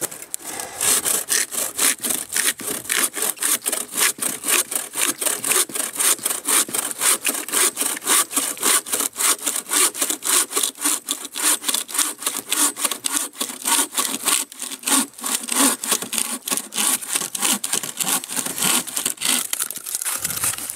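Bow saw cutting across a log with fast, even push-pull strokes, about four a second, the teeth rasping through the wood.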